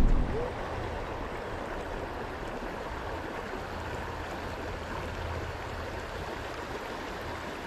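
The tail of loud music cuts off about half a second in, leaving the steady rushing of river water flowing over the rocks along the shore.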